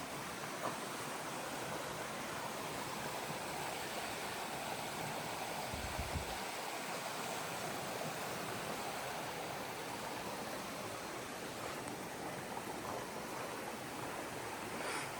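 Creek water flowing steadily, with a brief low thump about six seconds in.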